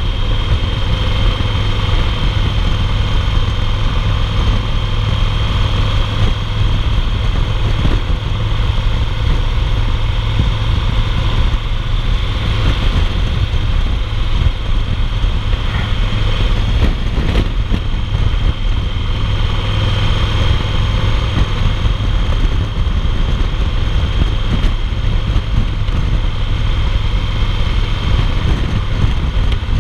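2008 Yamaha Roadliner's big air-cooled V-twin running steadily at highway cruising speed, heard from the saddle as a constant low rumble mixed with steady wind and road rush.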